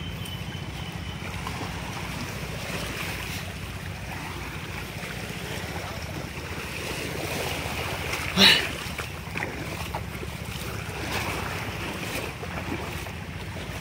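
Small waves lapping and washing around rocks in shallow sea water, with wind rumbling on the microphone. One short, louder sound breaks in about eight and a half seconds in.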